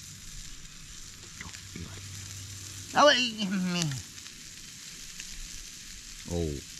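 Prawns frying in a pan on a portable gas camping stove, with a steady sizzle. About three seconds in, a man's voice cries out, falling in pitch, and a shorter vocal sound comes near the end.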